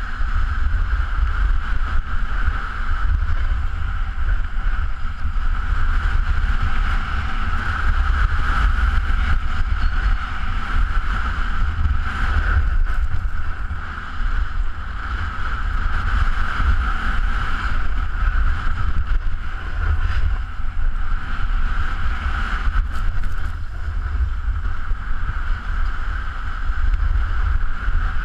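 Wind buffeting a body-worn GoPro's microphone during a downhill run on snow: a steady low rumble that swells and eases, with a hiss from sliding over packed snow.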